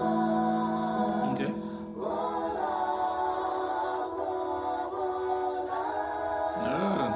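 A cappella vocal group singing held chords in close harmony, with a voice gliding in pitch about a second in and again near the end.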